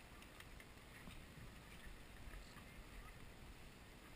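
Near silence: faint hiss with a few soft clicks.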